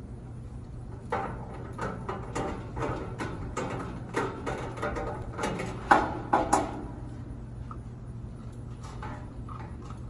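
An irregular run of sharp clicks and knocks from parts being handled and fitted on a gas grill during assembly, loudest about six seconds in, with a few fainter clicks near the end, over a steady low hum.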